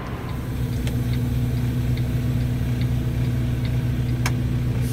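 Semi truck's diesel engine running steadily, heard from inside the cab, with faint light ticking over it and a single sharp click about four seconds in.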